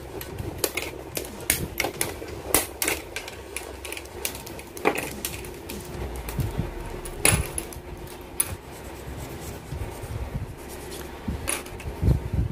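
Hobby side cutters snipping plastic model-kit parts off their runners: a string of sharp, irregularly spaced clicks and snaps.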